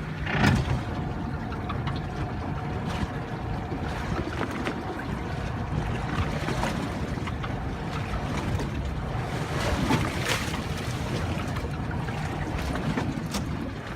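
Wind on the microphone and water against a small fishing boat's hull, over a low steady rumble, with a few short knocks.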